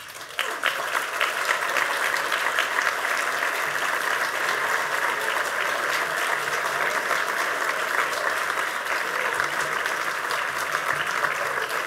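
An audience applauding: a round of applause that starts about half a second in and holds steady.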